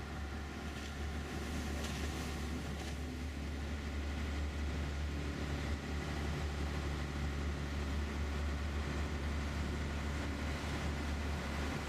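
Rescue boat's engine running at a steady speed: a low drone with several steady tones above it and an even hiss over the top.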